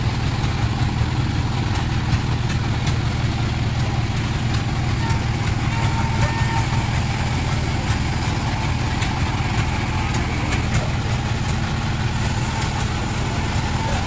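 Band sawmill's drive motor running steadily, a constant low hum, with a few faint knocks.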